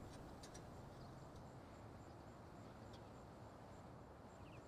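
Near silence: faint outdoor background hiss with a few faint, short high ticks.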